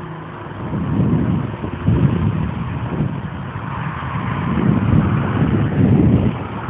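Boeing 777 freighter's GE90 turbofan engines at high thrust on a departure: a loud, deep, crackling jet rumble that swells about a second in and again near the end.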